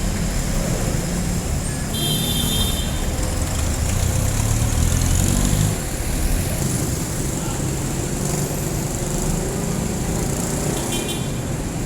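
Street traffic dominated by jeepney engines running. One vehicle's engine grows louder and then drops off sharply about six seconds in, and brief high-pitched sounds come about two seconds in and again near the end.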